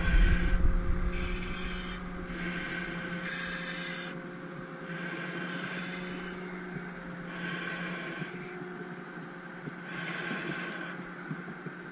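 A fire engine's motor running steadily, with a hiss that swells and fades about every second and a half, and a low rumble of knocks in the first second or so.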